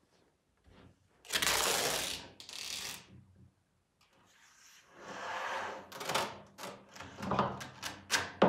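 A long thin wooden strip sliding and scraping over a wooden board, twice briefly and then longer, followed by a quick run of clicks and knocks as the strip is handled, the loudest knock near the end.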